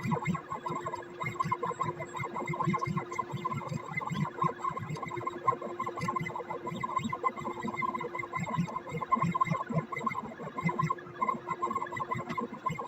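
Stepper motors of a CNC pen plotter whining steadily while it draws, with a rapid, uneven low pulsing as the axes move in short strokes.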